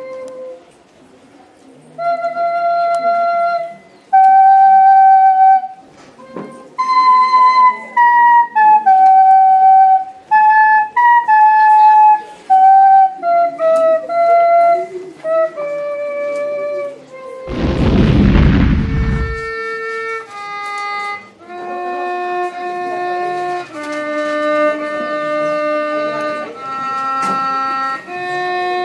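An end-blown flute plays a melody of single held notes. About two-thirds of the way in a loud rush of noise lasts about two seconds, and then a violin takes over with long held notes.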